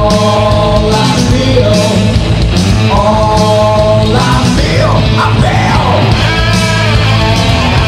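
Progressive power metal band playing on a 1990 demo recording: distorted electric guitars, bass and drums. Long held melodic notes come near the start and again about three seconds in, with sliding pitches around the middle.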